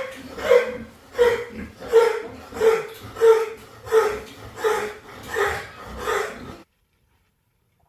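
A dog barking steadily, about ten barks at roughly one every 0.7 seconds. The sound cuts off suddenly near the end.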